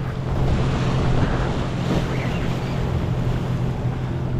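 Waves washing and breaking over jetty rocks, with wind buffeting the microphone, over a steady low hum.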